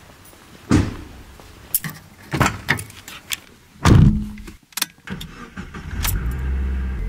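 Getting into a Mazda MX-5: keys rattle and a few knocks, the loudest about four seconds in as the door shuts; about a second later the engine starts and settles into a steady idle, in an underground car park.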